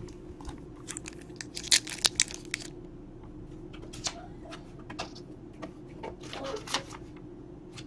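Faint crinkling and clicking of a foil trading-card pack wrapper and card stacks being handled, in short scattered spells over a steady low hum.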